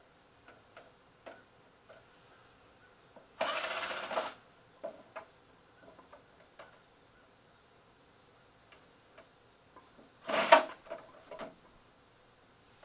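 Scattered small clicks and clatter of tools and parts as a CRT television is taken apart by hand, with a noisy burst lasting about a second, three and a half seconds in, and a sharper, louder one about ten seconds in.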